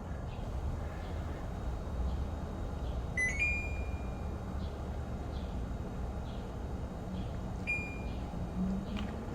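Portable air conditioner running with a steady low hum, and two electronic beeps from its controls: a quick rising double beep about three seconds in, and a single beep near the end.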